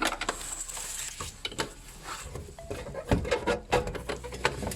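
Hard plastic and metal clicks and knocks as a fan motor and its retaining plug are pushed and fitted into the housing of a heat-recovery ventilation unit, with a few louder knocks about three seconds in.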